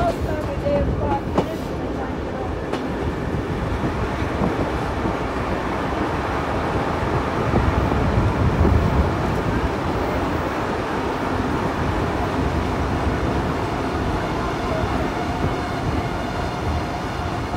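Vintage passenger carriage of a steam-hauled train running along the track: a steady rumble and rattle of wheels on rails, heard at the carriage's open window.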